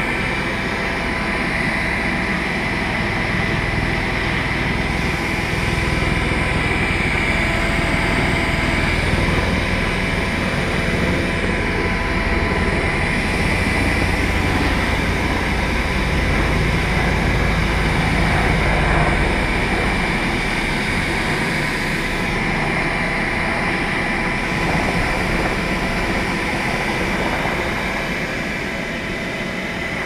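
Bee vacuum running steadily with a constant whine as its hose draws bees out of a cavity in a house wall.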